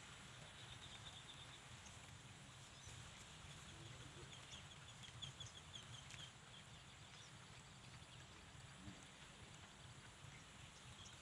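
Faint outdoor quiet with a bird chirping in quick runs of short high notes, once about a second in and again from about three to six seconds in.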